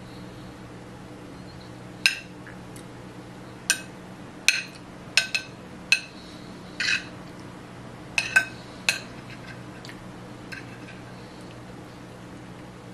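A metal fork clinking against a plate while someone eats: about ten sharp, ringing clinks at irregular intervals.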